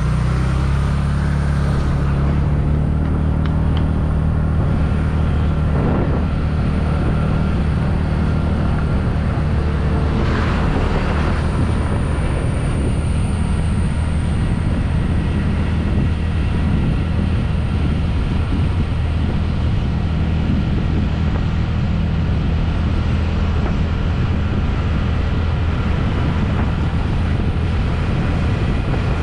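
TVS Ntorq 125 scooter being ridden at speed: its single-cylinder engine running under steady wind rumble and road noise on the camera's microphone.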